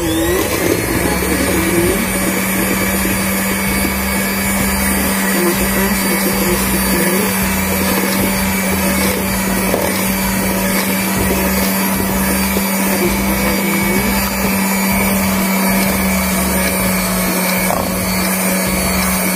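Electric hand mixer starting up and running steadily with a constant hum, its beaters mixing powdered steamed-brownie flour mix into beaten eggs.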